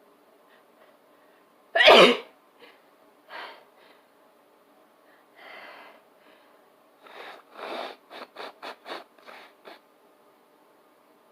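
A person sneezing: one loud, sharp sneeze about two seconds in, followed by a few softer bursts and then a quick run of about eight short bursts near the end.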